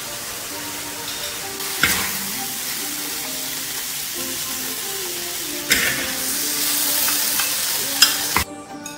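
Dried long beans stir-frying in a black iron wok: a steady sizzle, with a metal spatula scraping across the wok about three times. The sizzle cuts off suddenly near the end.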